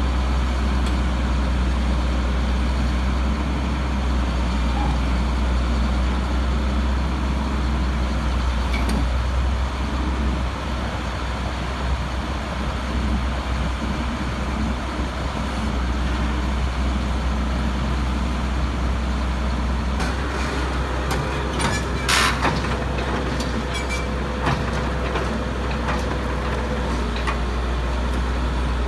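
Heavy diesel engine running steadily, with a strong low drone. From about two-thirds of the way in, a scatter of sharp clicks and knocks joins it.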